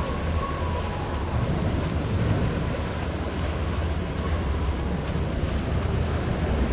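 Steady rush of wind buffeting the microphone over water rushing past a boat underway.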